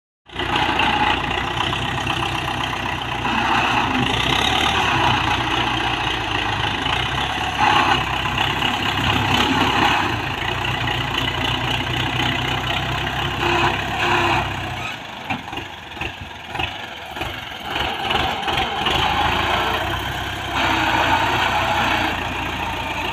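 Tractor diesel engine running while the front loader pushes and levels loose dirt, its note swelling and easing as the load comes and goes. About two-thirds of the way through, the engine note drops and turns uneven for a few seconds, then it settles back into steady running.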